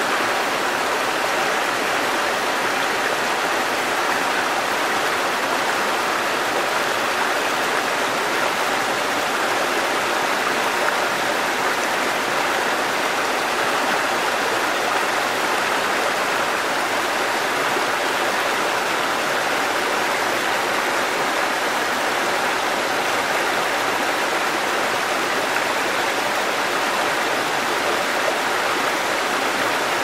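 Rocky mountain stream rushing and splashing over boulders and small cascades in a steady, unbroken rush of water.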